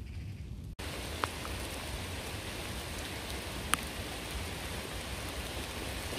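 Steady rain hiss that comes in abruptly about a second in, with a low rumble beneath and two brief sharp ticks.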